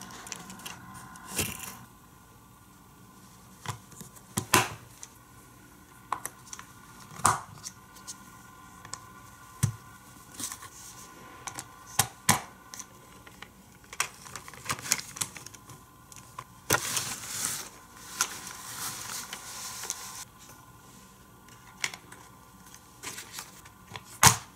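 Plastic toy playset parts being handled and snapped together: scattered sharp clicks and taps, irregular, with a rustle lasting about three seconds past the middle.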